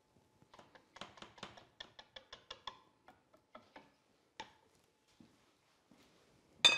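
Wire whisk clicking and scraping against the side of a metal pot as it stirs thick semolina pudding: a quick run of clicks, about five a second, that thins out to a few scattered ones. Near the end there is one loud, ringing clink.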